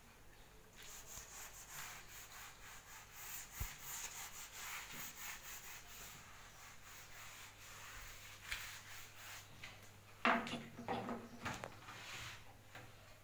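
Dry rubbing on a whiteboard, a duster or hand sweeping across the board, with a short louder sound about ten seconds in.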